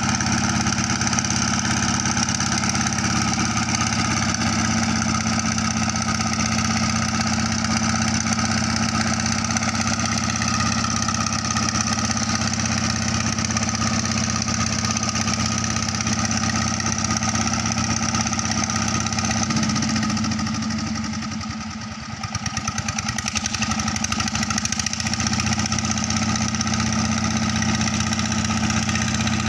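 Engine of a river sand-suction pump running steadily. Its sound dips briefly about two-thirds of the way through, then comes back to the same steady note.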